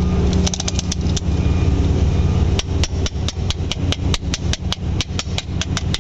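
Rapid run of sharp metallic clicks, about five a second, from a band-type piston ring compressor being worked tight around a piston to squeeze its rings in. The clicks start about halfway through, over a steady low engine hum.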